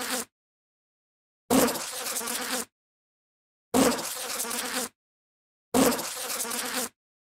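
Bee buzzing in short repeated bursts, each just over a second long, loudest at the start and then steady, with dead silence between them. The tail of one burst ends just after the start, and three full bursts follow.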